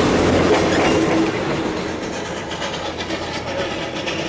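Passenger railroad coaches rolling past at close range, their wheels clacking over the rails. The sound drops off sharply just over a second in.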